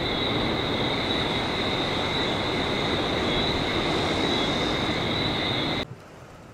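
Steady rushing noise of ocean surf and wind, with a steady high-pitched ringing on top. It cuts off suddenly near the end, leaving quiet room tone.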